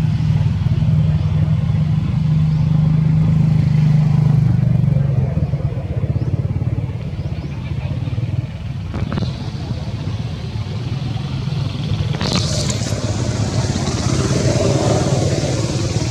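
A steady low rumble, as of a motor vehicle engine running, strongest in the first five seconds, with a sharp knock about nine seconds in and another about twelve seconds in.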